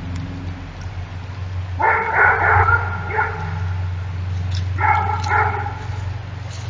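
An animal barking, most like a dog: a few short barks about two seconds in and two more about five seconds in, over a steady low hum.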